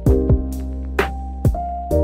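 Background music: held keyboard chords over a deep bass, with a steady drum beat of sharp hits and low kick thuds.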